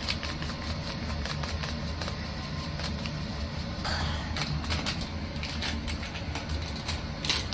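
A steady low hum with scattered light clicks and a few brief rustling scrapes as more spice is spooned onto raw chicken in a bowl.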